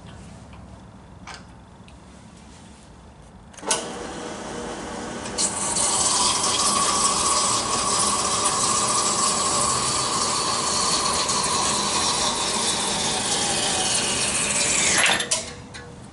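Horizontal metal-cutting band saw starting up about four seconds in, then its blade sawing through an acetal plastic rod with a steady hiss over the running motor. The saw stops near the end, its tone dropping away.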